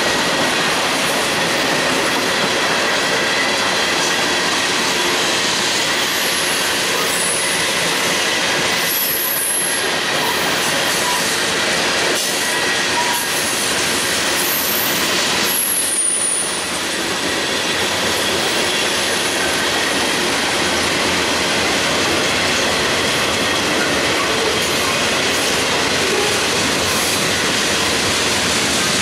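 Freight train cars rolling past close by: a steady loud noise of steel wheels running on the rails. Short high-pitched wheel squeals come a few times around the middle.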